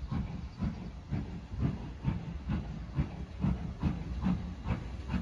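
Steam locomotive working hard, its exhaust beating in a regular chuff about twice a second and quickening slightly, with a hiss of steam behind it.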